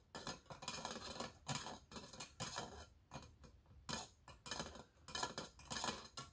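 A steel part hanging on a wire, freshly quenched in motor oil, clinking and scraping against the inside of a tin can as it is moved about, in irregular clusters of light metal clicks.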